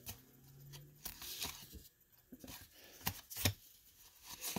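Stack of 1991 Topps baseball cards being flipped through by hand: cardboard cards sliding against one another, with about five short sharp snaps as cards come off the stack.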